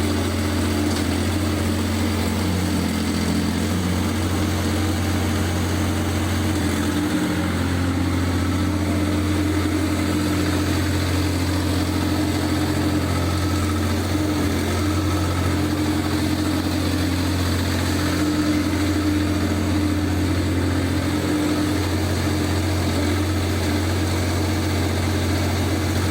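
Mini excavator's Laidong 385 Euro 5 diesel engine running steadily at a constant speed, a continuous low hum with no revving.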